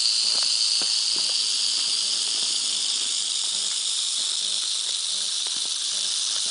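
South American rattlesnake shaking its tail rattle: a continuous, steady, high dry buzz, the snake's warning display.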